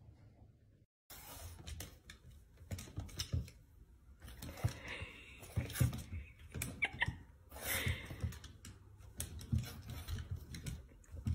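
Small dog's claws clicking and tapping irregularly on a hardwood floor as it moves about, starting about a second in.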